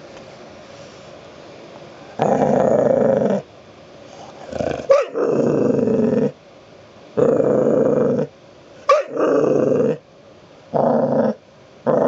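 Pitbull puppy growling in a run of loud growls, about one to two seconds each, starting about two seconds in, with a couple of short high yips mixed in. It is a demanding growl for more petting.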